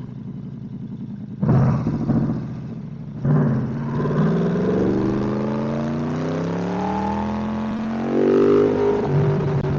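Yamaha R1's crossplane inline-four engine: running low, a sharp blip of throttle about a second and a half in, then from about three seconds in a strong pull with the engine note rising steadily in pitch for several seconds, and another loud burst of throttle near the end.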